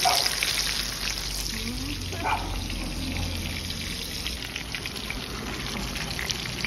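Breaded fish fillets deep-frying in hot oil in a disco pan: a steady sizzle with dense crackling.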